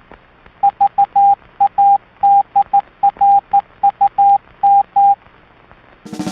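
A Morse code tone, one steady beep keyed in dots and dashes, with the last four letters reading D-R-U-M. A drum kit comes in near the end.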